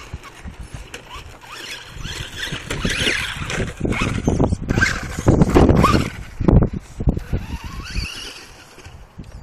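Traxxas Stampede 4x4 radio-controlled monster truck driving across grass and pavement: its electric motor whines as the throttle changes, with a rattle of tyres and chassis. It is loudest around the middle as the truck passes close by.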